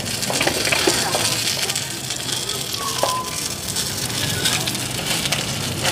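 Chive cakes (bánh hẹ) sizzling in oil in a wide, shallow pan, a steady hiss of frying.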